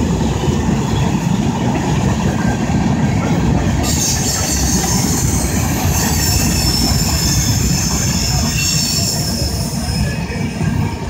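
Freight train cars rolling past close by: a steady heavy rumble of steel wheels on rail. About four seconds in, a high-pitched metallic squeal joins in, and it fades near the end.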